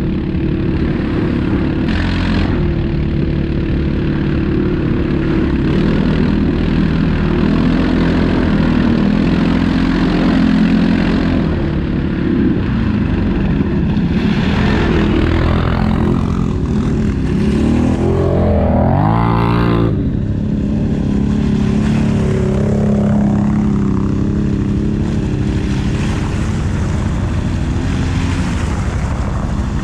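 ATV engine running under way at steady throttle, its pitch shifting a little with load. About two-thirds through it revs up in one sharp rising sweep that cuts off suddenly, then settles back to a steady run.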